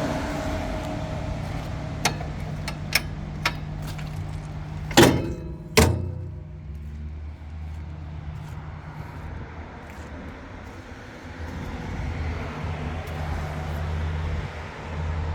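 Tracked skid steer's diesel engine running steadily, with a few sharp clicks and then two loud clanks about five and six seconds in. After the clanks the engine note settles lower.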